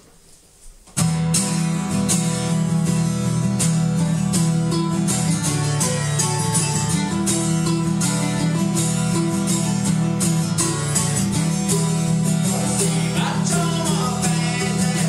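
Acoustic guitar and mandolin strumming a brisk folk tune together, starting suddenly about a second in with steady, regular strums.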